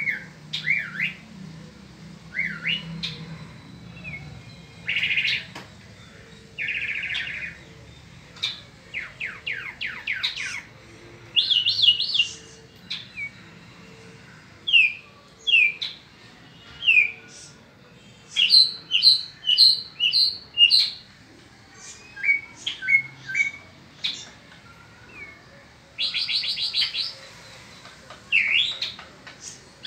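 Caged mockingbird (cenzontle peninsular) singing its spring song: a long run of varied phrases with short pauses between them, each phrase a burst of repeated notes, a fast trill, a buzzy note or a down-slurred whistle, often given several times before it switches to the next.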